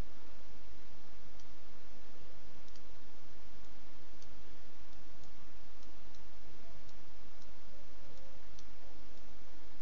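Computer mouse clicking now and then, about a dozen short, irregularly spaced clicks, over a steady hiss and low hum from the microphone.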